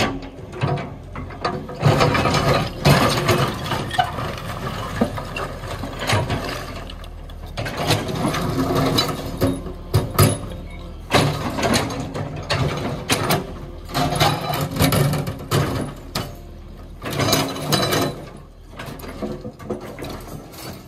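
Kobelko excavator bucket digging into and moving a pile of demolished brick rubble: bricks clattering and knocking against each other and the steel bucket in irregular bursts, over the machine's steady engine hum.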